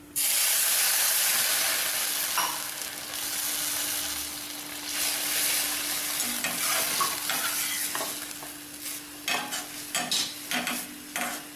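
Water poured into a hot pan of ghee-roasted vermicelli, setting off a sudden loud sizzle that slowly dies down as the vermicelli is stirred with a steel ladle. Near the end, a run of sharp scrapes and taps from the ladle on the pan.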